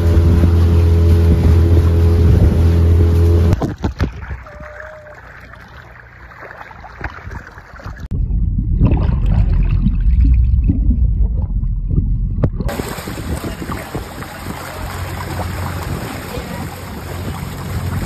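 A boat engine runs steadily with a strong low hum, until a cut about three and a half seconds in. Later comes a muffled underwater rumble with the high sounds gone. From about twelve seconds on, water rushes and splashes around a swimmer towed beside the moving boat.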